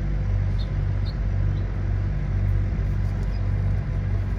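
Steady low mechanical hum, with a few faint light clicks in the first couple of seconds as new brake pad hardware clips are fitted to the caliper bracket.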